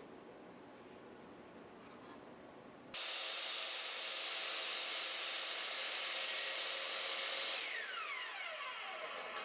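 Woodworking power tool working wood: a quieter stretch, then a sudden switch about three seconds in to a louder, steady high whir, with the motor's pitch falling near the end as it winds down.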